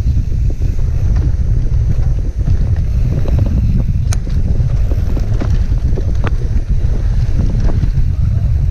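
Wind buffeting a ride camera's microphone as a mountain bike descends a dirt trail, with a steady low rumble from the tyres and frame and constant small rattles from the bike. A sharp click about four seconds in.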